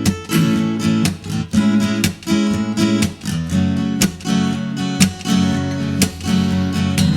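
Acoustic guitar strummed in a steady rhythm, the instrumental introduction of a song before the vocals come in.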